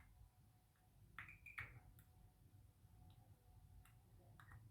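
Near silence with a few faint, light clicks from handling the pocket watch movement and its small parts, one near the start, two at about a second and a half in, and one near the end.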